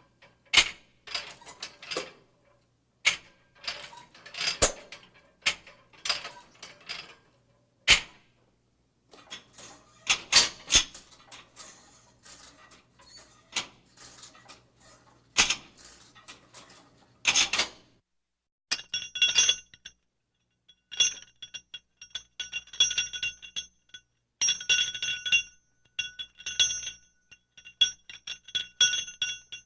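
A string of sharp separate hits and knocks, then from about two-thirds of the way in, short bursts of rapid clicking with a metallic ringing in them, repeating every second or two.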